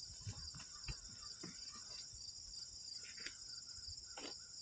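Faint steady chorus of field insects, crickets trilling in one even, high, continuous band, with a few faint clicks and rustles.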